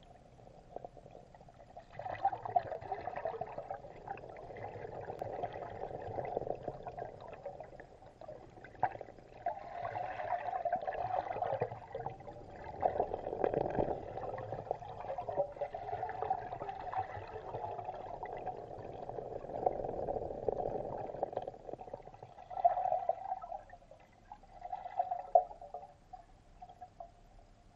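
Muffled underwater sound of diving ducks feeding on the lake bed: churning, gurgling water with scattered clicks and knocks, coming in uneven bursts and dying down near the end.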